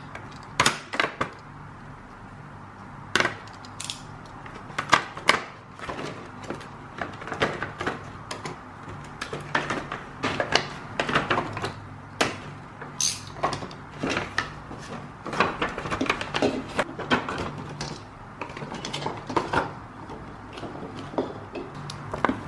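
Irregular clicks, taps and light knocks of decorations and tree parts being handled, over a faint steady low hum.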